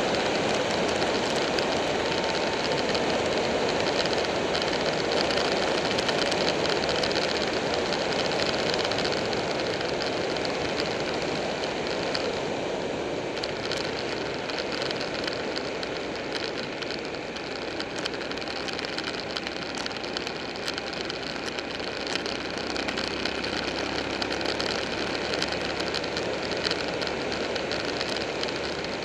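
Buell 1125R motorcycle riding at speed: steady wind rush over the microphone with the V-twin engine running underneath. It eases off slightly for a few seconds mid-way.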